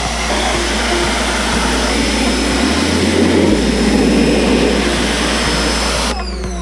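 Craftsman CMEPW2100 2100 psi electric pressure washer spraying a jet of water onto a car's engine bay: a loud, steady hiss of the spray over a low hum. The spray cuts off suddenly about six seconds in.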